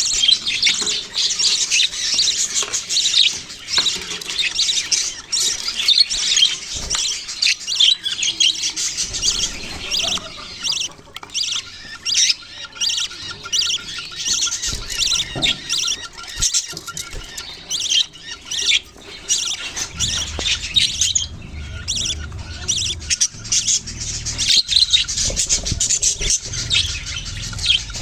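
A flock of budgerigars chirping and chattering continuously, a dense mix of quick high squawks and warbles.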